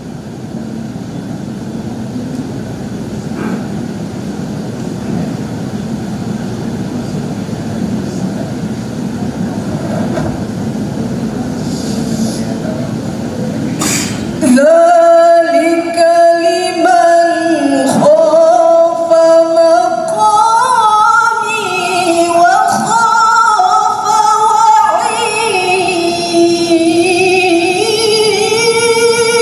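For about the first half, a steady murmur of room and crowd noise with no voice. Then, after an abrupt cut, a woman recites the Quran in melodic tilawah style into a microphone, holding long ornamented notes that rise and fall.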